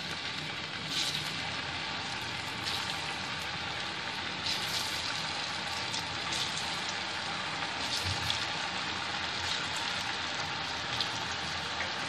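Pieces of semolina and gram-flour dough deep-frying in hot oil: a steady sizzle with scattered crackles.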